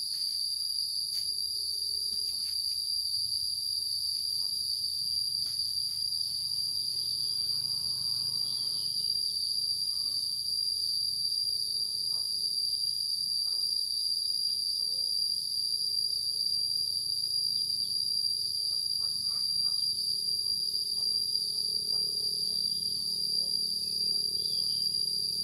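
Insects calling in one steady, unbroken high-pitched drone, with a few faint clicks underneath.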